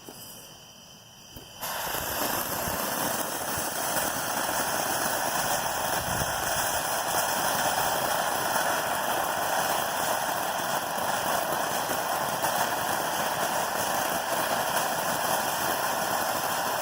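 Consumer firework fountain ('Sounds of Summer' from American Fireworks Warehouse), lit and catching about a second and a half in, then spraying with a steady hiss.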